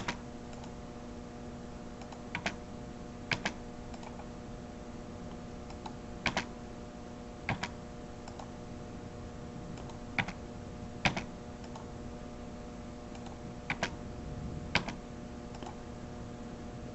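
Sparse clicks of a computer keyboard and mouse, about a dozen spaced a second or more apart, some in quick pairs, over a steady hum.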